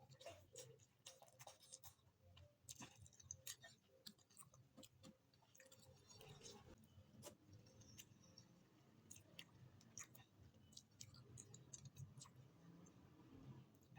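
A person chewing food, faint and close, with many small, sharp mouth clicks scattered throughout.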